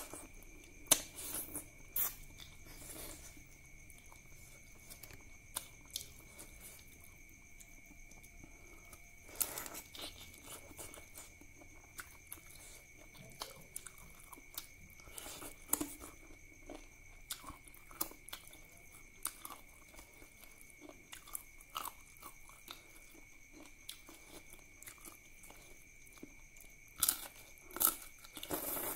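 A person eating duck curry and rice by hand and chewing with the mouth open: wet smacking and chewing, with sharp crunches and clicks now and then, the loudest about a second in and twice near the end.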